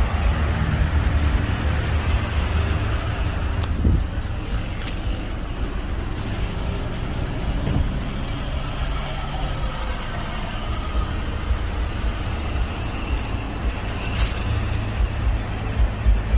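Steady low rumble of road traffic from a busy street, with a couple of sharp clicks about four seconds in and a short hiss near the end.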